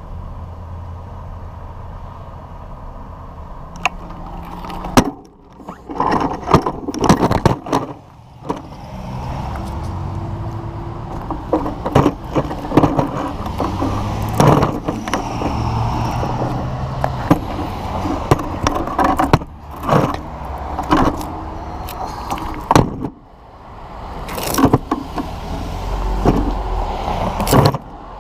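Motor traffic on the road, a steady rumble, overlaid from about four seconds in by many sharp knocks and rattles.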